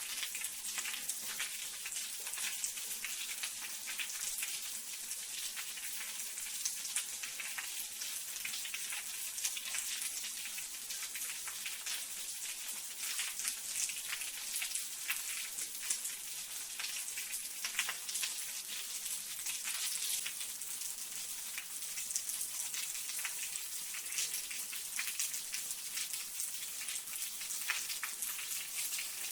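Water drops pattering and splashing: a steady, dense crackle of many small drops over a high hiss.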